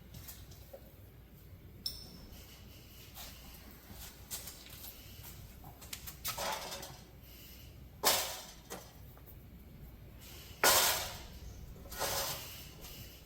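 Metal weights being handled and set down on a warped steel sheet on a plasma-cutting table to hold it flat. A light clink with a brief ring comes about two seconds in, then three louder clanks in the second half, the loudest about three-quarters through.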